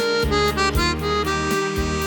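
Instrumental music on a free-reed instrument of the accordion kind: a melody over sustained chords and bass notes that change every half-second or so.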